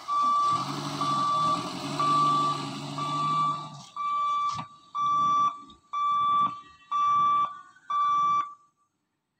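Level-crossing warning buzzer beeping in a steady high tone while the boom barriers lift, nine half-second beeps about once a second, then stopping. A low hum runs under the first few beeps.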